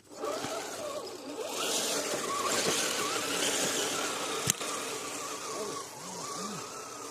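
Electric motor and geared drivetrain of a radio-controlled rock crawler whining as it drives, its pitch wavering, with a hissing grind added from about a second and a half in and one sharp click about four and a half seconds in. The owner blames the noise on the drivetrain's factory sealed bearings.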